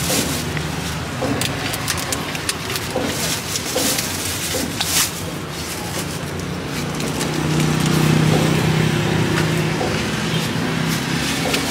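Street traffic engine hum that swells as a vehicle runs close by about eight seconds in, with scattered light clicks of a kitchen knife slicing mango into a plastic tray.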